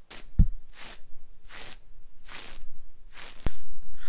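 A grooming brush swept in firm strokes over a horse's coat, a hissing swish about every second, with a dull thump about half a second in and a sharp click near the end.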